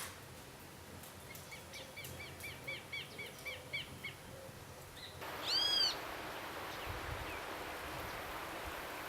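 Wild birds calling: a run of about ten quick, evenly spaced high notes, then one loud drawn-out note about five seconds in, over a steady outdoor hiss.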